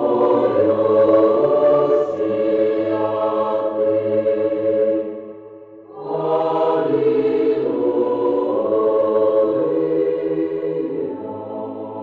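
Choir chanting over a low held note in two long sustained phrases, with a brief drop in level about five seconds in.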